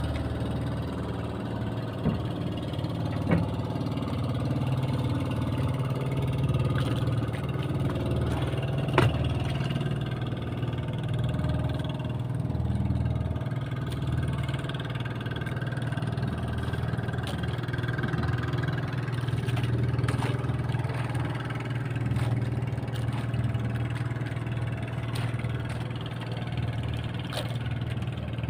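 Small boat engine running steadily at a low, even hum, with a few light knocks.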